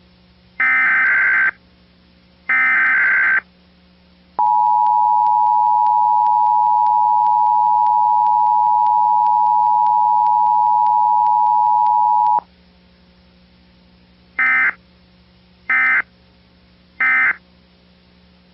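Emergency Alert System tones: two bursts of the screeching digital SAME header, then the two-tone attention signal held steady for about eight seconds, then three short end-of-message data bursts. The sequence marks the start of an EAS test broadcast.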